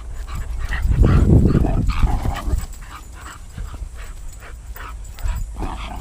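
A dog giving many short, high cries, several a second, with a loud low rumble from about one to two and a half seconds in.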